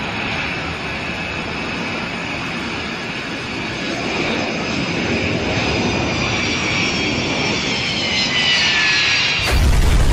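Jet engines of a Boeing 727 airliner running as it flies low past, their whine falling in pitch as it goes by. About nine seconds in, a sudden loud crash as the airliner hits the ground.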